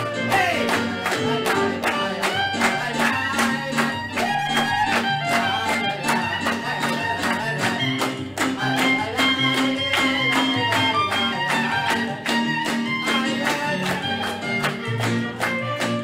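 Upbeat music led by violin over a steady beat.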